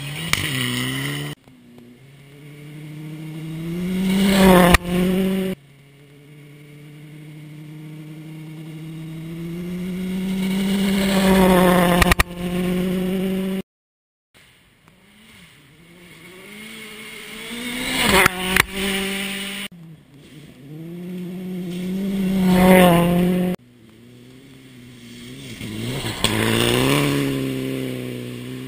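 A series of rally cars passing at speed on gravel, one after another, about five passes in all. On each, the engine note climbs as the car accelerates toward the microphone, then drops sharply as it goes by, with gravel clattering. Several passes cut off abruptly.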